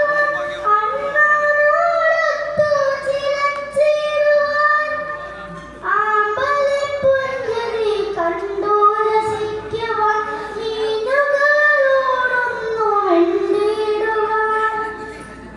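A boy singing a Malayalam poem solo in the sung recitation style, with long drawn-out notes and no accompaniment. He pauses briefly about six seconds in and again near the end.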